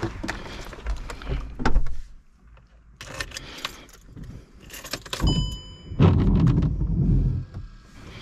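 Handling noise in a car's driver's seat: clothes and seat rustling, clicks and keys jangling, then a short electronic beep a little after five seconds in, followed by a louder low noise lasting about a second and a half.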